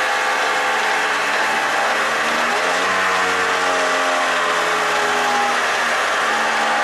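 Electric drive motor and gearbox of a radio-controlled Hymer camper van model, whining as it tows a model caravan. The pitch slides up and down as it changes speed, over a steady hiss.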